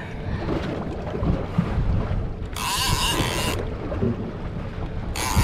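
Wind buffeting the microphone over a boat's low rumble and the sound of water beside the hull. About two and a half seconds in there is a one-second burst of high hiss.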